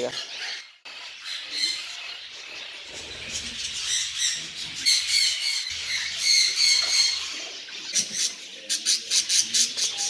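Budgerigars chirping and chattering in short, high repeated notes, with a quick run of sharp clicking chirps near the end.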